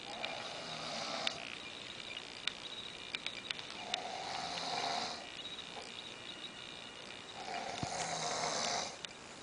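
A man snoring in his sleep: three long snores, each lasting about a second, coming about every three and a half seconds.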